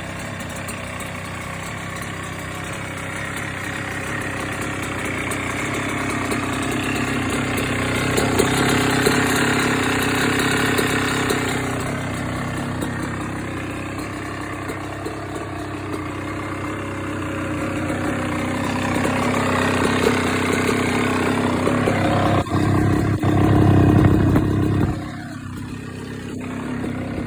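2024 Kawasaki KX112's two-stroke single-cylinder engine idling. It swells in speed and loudness twice, the second time strongest, and drops back a couple of seconds before the end.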